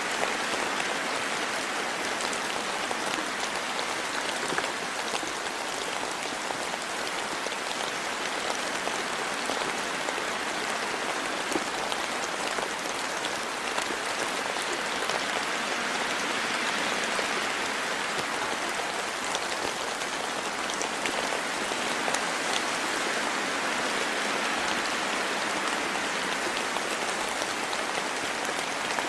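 Steady rain falling in a forest, a dense hiss of drops with fine scattered pattering on leaves and ground.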